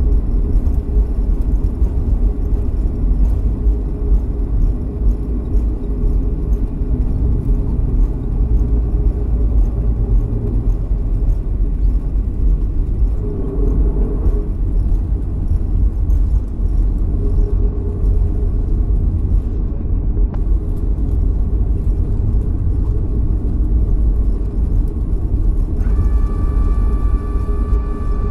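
Cabin noise inside a Boeing 737-300 rolling out after landing and slowing to taxi speed: a steady, loud low rumble from the wheels, airflow and CFM56 engines, heard over the wing. Near the end a steady higher whine joins in.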